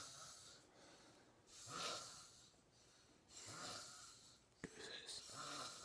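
A sleeping woman snoring faintly, three slow snoring breaths about a second and a half apart. A single sharp click falls between the second and third.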